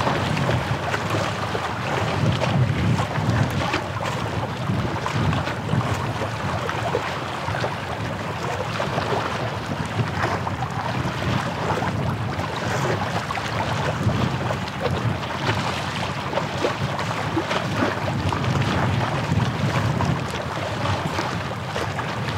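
Wind buffeting the microphone over small waves washing against the shore, a steady rumbling hiss that swells and eases unevenly.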